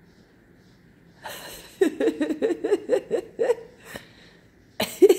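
A woman laughing in a quick run of short bursts that starts about a second in and lasts a couple of seconds, then a single click and another short laugh near the end.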